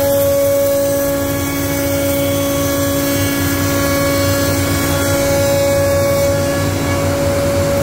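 STM1325C CNC router's spindle cutting tenons on wooden window rails. It gives a steady high whine at an unchanging pitch over a rough, fluctuating rumble of cutting.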